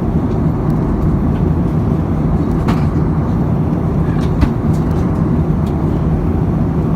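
Steady low rumble of an Airbus A320's cabin in cruise, engine and airflow noise, with a few faint clicks.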